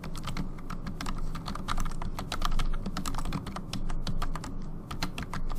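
Typing on a computer keyboard: a fast, uneven run of key clicks, several a second.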